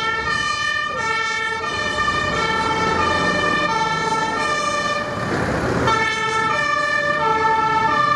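German two-tone fire engine siren (Martinshorn) on an LF 16/12 fire engine on an emergency run, switching back and forth between two pitches about every two-thirds of a second. About five seconds in the two-tone pattern drops out for under a second while a rush of noise takes over, then resumes.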